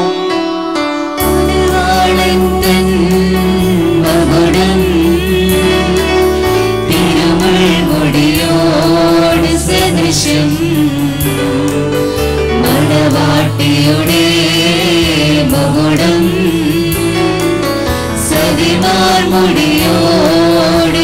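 A Christian hymn sung over instrumental accompaniment of held chords and a steady bass, starting about a second in after a brief pause in the chanting.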